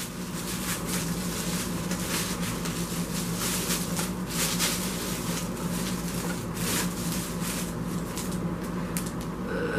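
Bubble wrap and plastic packaging rustling and crinkling as a large book is unwrapped by hand, with many small crackles over a steady low hum.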